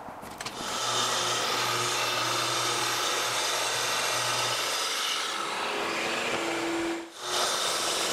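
Festool TS 75 plunge-cut track saw running and cutting through a sheet of plywood along its guide rail, a steady saw noise. It dips briefly about seven seconds in, then carries on.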